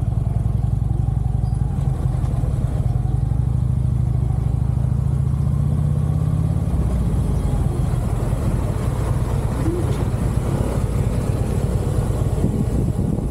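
Harley-Davidson V-twin motorcycle engine running loud and steady as the bike is ridden, with a deep pulsing note; the throttle eases off about halfway through.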